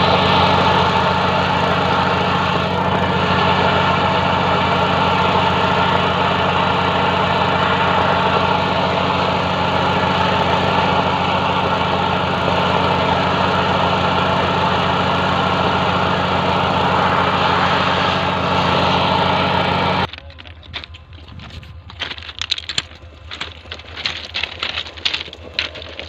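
An engine running steadily at one speed. It stops abruptly about 20 seconds in, leaving irregular clicks and knocks.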